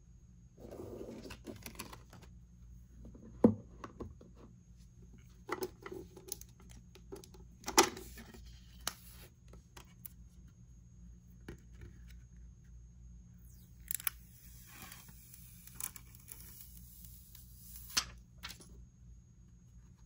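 Packaging being handled during an unboxing: paper or plastic being torn and peeled, with scattered sharp clicks and taps. There is a longer stretch of rustling about two-thirds of the way through.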